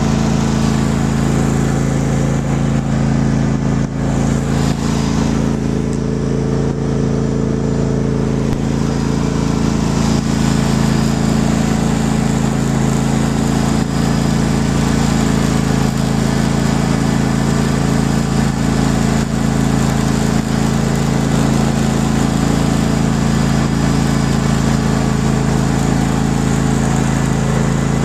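An engine running steadily at a constant speed, with an even low hum that does not change.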